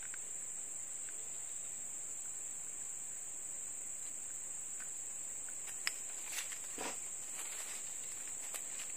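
Steady, high-pitched drone of an insect chorus, unbroken throughout. A few light clicks and a brief rustle come in about six seconds in.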